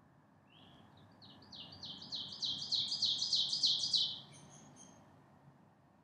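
A songbird singing a run of quick, high repeated notes, about six a second, that grows steadily louder and then stops abruptly about four seconds in.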